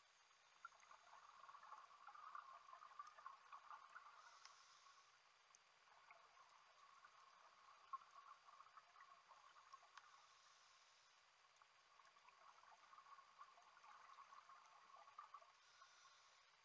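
Faint underwater ambience heard through a camera housing: a steady light crackle, with a short hiss of scuba regulator exhaust bubbles about every six seconds, three times over.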